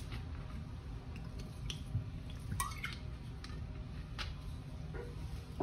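Lemon squeezed by hand over the stuffing mixture: faint squishing and a few separate drips of juice, about one a second, over a low steady hum.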